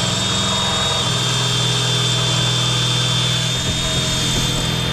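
Cordless drill running at a steady speed with a high whine, its bit boring into the rust-eaten heads of steel wood screws to cut them off.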